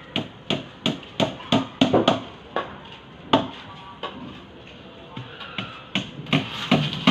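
Hammer blows: a quick run of knocks about three a second for two seconds, a single blow about three seconds in, then knocking again near the end. Music plays in the background.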